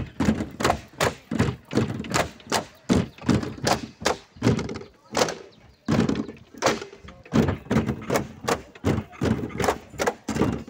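Bamboo poles of a Mizo Cheraw dance knocking together and against the base poles in a steady clapping rhythm, about three sharp wooden knocks a second.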